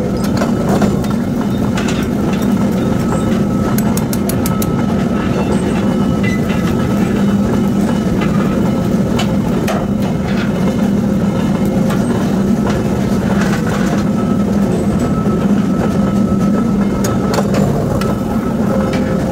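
Forging press running with a steady, loud, heavy mechanical drone, with scattered metallic clicks and knocks from hot steel being worked at the die, including a quick run of clicks about four seconds in.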